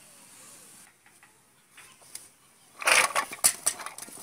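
Cut radish strips poured from a steel plate into a steel bowl: a sudden rush of pieces clattering and sliding onto the metal about three seconds in, with a sharp knock of metal partway through.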